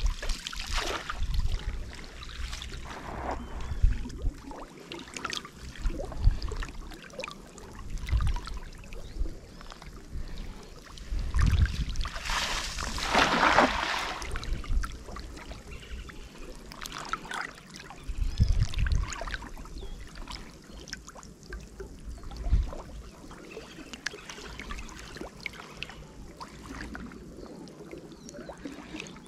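Water splashing and trickling with irregular low thuds, and a longer rush of water about twelve seconds in.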